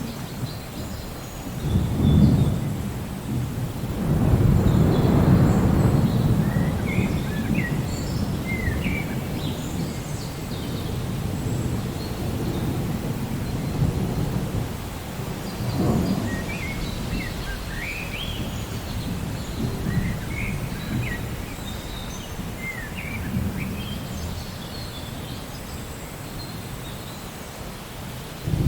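Steady rain with rolls of thunder: a short rumble about two seconds in, a longer one from about four to seven seconds, another near the middle and one at the very end. Small birds chirp throughout.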